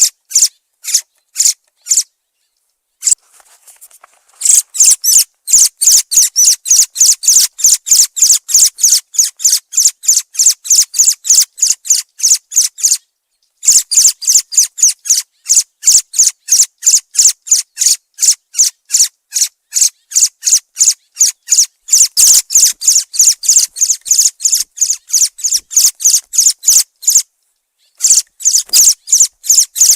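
Thrush calling: a long run of short, sharp, high-pitched notes repeated about four times a second, broken by short pauses about 3 seconds in, near the middle and near the end.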